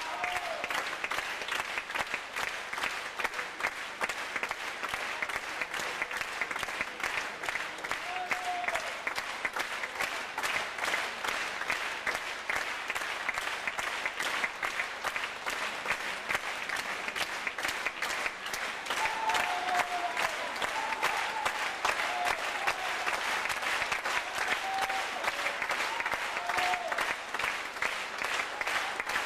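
Theatre audience applauding, dense and steady clapping, with a few short calls rising over it about two-thirds of the way through.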